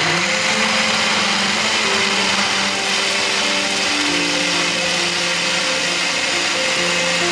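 NutriBullet personal blender running steadily, its blade pureeing red chillies and garlic into a smooth sauce.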